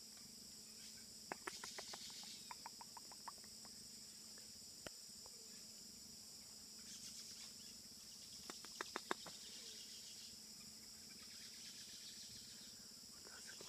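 Steady high-pitched insect chorus, with two short runs of rapid clicks: one about a second in and one about eight and a half seconds in.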